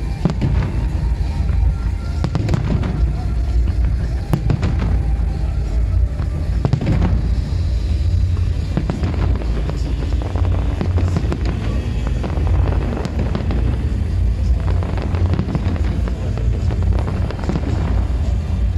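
Fireworks display: a dense, unbroken run of aerial shell bursts, many sharp bangs over a steady low rumble.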